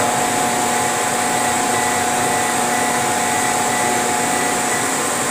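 Steady whirring hum of a laser cutting and engraving machine at work, a few steady tones over an even noise, as its fans and motors run while the head traces over the sheet.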